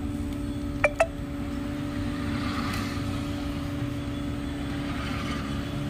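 Steady motor hum over a low rumble, with two sharp clicks close together about a second in.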